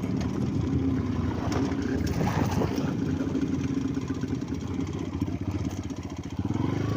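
An engine running steadily, with its pitch rising briefly near the end.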